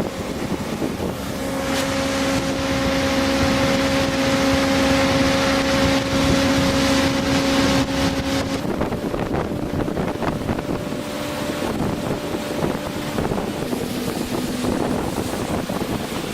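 Motorboat engine running at speed, a steady droning note under rushing wind on the microphone; about two-thirds of the way through the engine note changes and the sound eases off slightly.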